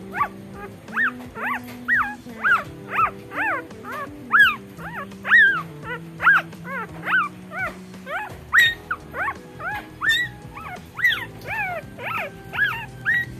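Newborn puppies, a day old, squeaking and whimpering over and over while they jostle to nurse, short high squeaks that rise and fall, about two a second. Background music with held notes plays underneath.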